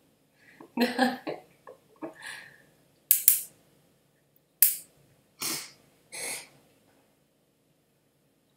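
Stifled human laughter: a short laugh about a second in, then several sharp, breathy snorts and puffs of held-back laughter.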